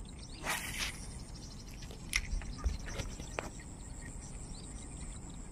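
Lakeside outdoor ambience: a steady high insect drone with scattered short bird chirps, and a brief rushing noise about half a second in.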